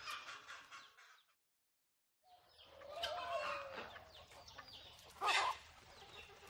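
Faint chickens clucking, broken by a second or so of dead silence at a cut, with one brief louder sound about five seconds in.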